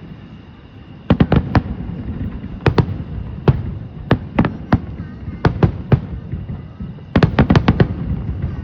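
Fireworks display: firework shells bursting in a string of sharp bangs, in groups of two or three, ending in a quick cluster of about half a dozen near the end.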